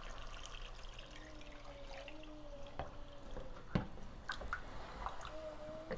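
Wooden spoon stirring chunks of pork in water in a stainless steel pot: faint wet sloshing with a few sharp clicks of the spoon against the pot, the loudest about four seconds in. A faint steady hum comes in about a second in, stops, and returns near the end.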